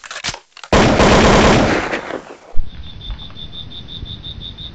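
Sound effects of an animated logo intro: a few clicks, then a loud noisy rush lasting nearly two seconds, a sharp hit, and a softer hiss with a high beep pulsing about seven times a second.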